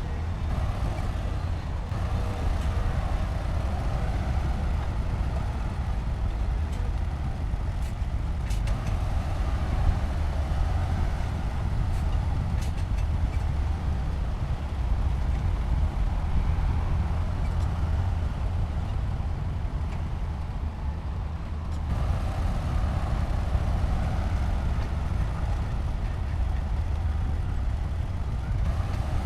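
Heavy diesel construction machinery running continuously with a deep, steady rumble, the engine sound swelling and easing a few times, with a few faint clanks.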